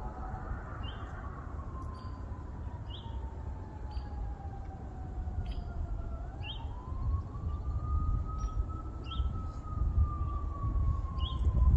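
A siren wailing, its single tone sliding slowly down in pitch, rising again about halfway through, then falling once more. A short, high chirp repeats about once a second over it, with a steady low rumble underneath.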